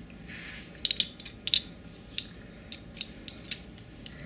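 Small metal clicks and taps from handling a CO2 cartridge and an airsoft pistol's CO2 magazine while an Allen wrench screws the cartridge in. The clicks come irregularly, loudest in a cluster about a second in and again at about one and a half seconds.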